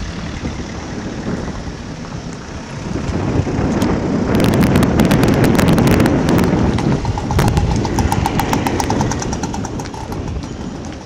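An engine passing close by. It swells from about three seconds in, is loudest in the middle with a rapid ticking, and fades toward the end.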